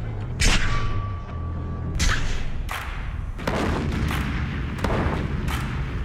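Avalanche-control explosive rounds going off on snow slopes: a loud boom about half a second in, then a string of further booms and thuds every second or so.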